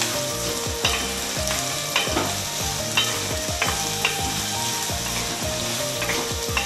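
Chopped onions with ginger-garlic paste sizzling in hot oil in a metal wok, stirred with a wooden spatula that scrapes or knocks against the pan every second or so.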